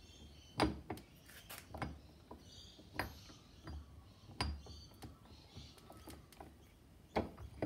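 Gear and bearing parts clicking and knocking against the aluminium transfer case as a gear is set onto its shaft and seated by hand. Several scattered clicks, the sharpest about half a second in and near the end.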